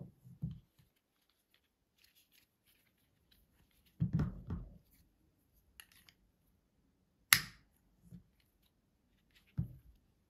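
Plastic flexible table tripod being handled: faint scratching and fiddling with its mounting plate, a few low knocks against the table, and one sharp plastic click about seven seconds in.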